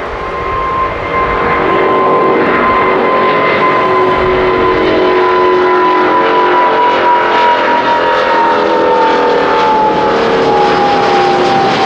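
Rolls-Royce Trent XWB turbofans of an Airbus A350-900 at takeoff thrust during climb-out. The jet noise grows louder over the first two seconds and then holds, with a high whine that slowly falls in pitch as the aircraft passes.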